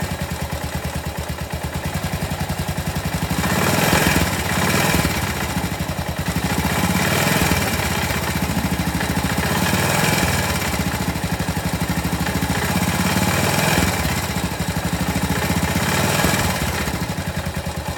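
Yamaha SR500's single-cylinder four-stroke engine idling with a steady beat, revved briefly about six times. The owner is recording a suspicious noise from the engine.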